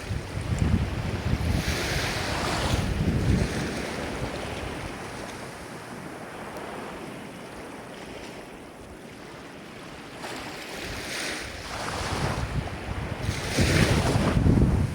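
Ocean waves breaking and washing in: one surge in the first few seconds, a quieter lull, then a second wave building to a crash near the end.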